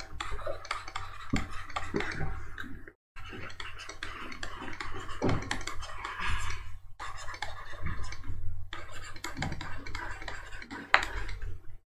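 Scratching and small clicks of a stylus writing on a pen tablet, over a steady low hum; the sound cuts out completely for a moment about three seconds in.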